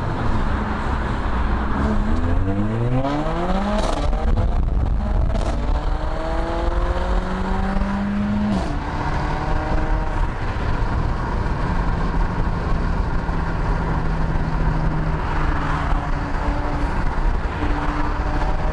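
Car engine accelerating hard through several quick gear changes, revs climbing and dropping back about four times in the first ten seconds, then holding steady at cruising speed. It is heard from inside the cabin over steady road and wind noise.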